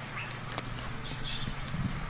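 Raindrops dripping and ticking with a few short bird chirps, over a steady low hum.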